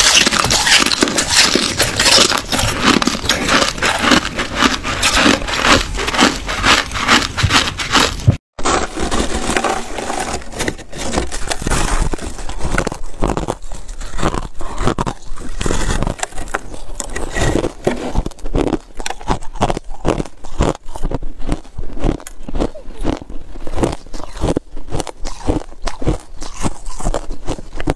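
Ice being bitten and chewed close to the microphone: at first a dense run of crisp crunches from a thin sheet of ice, then after a split-second gap a block of frozen crushed ice being bitten, with sparser, more separate crunches.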